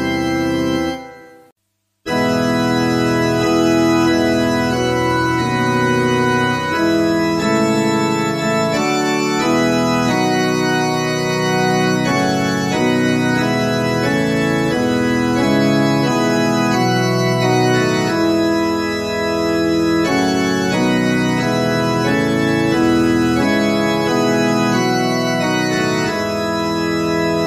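Organ music. One piece stops about a second in, and after a moment of silence another begins, played in slow, sustained chords.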